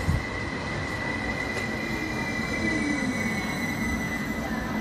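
Electric commuter train, an HSL Stadler FLIRT multiple unit, rolling along the platform and slowing to a stop, with a steady high squeal that dips slightly in pitch after about three seconds and a lower whine gliding downward midway, over the rumble of the running gear.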